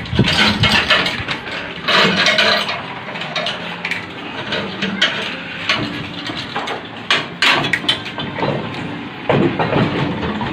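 Irregular knocks and metal clanks, like tools working on machinery, over a steady background noise.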